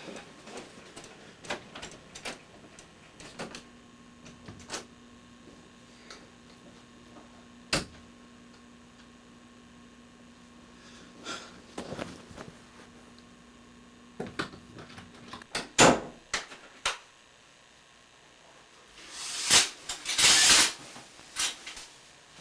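Scattered knocks and clicks of someone moving about a small room, with a faint steady hum through the middle. Near the end come two loud swishing bursts.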